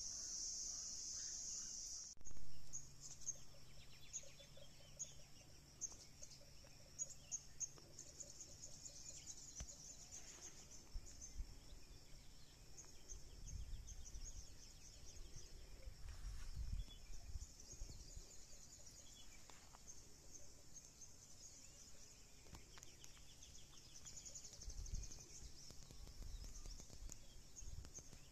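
Insects chirping high and continuously. A steady drone for the first two seconds gives way to rapid pulsing chirps after a sudden break with a brief thump. Low wind rumbles hit the microphone now and then.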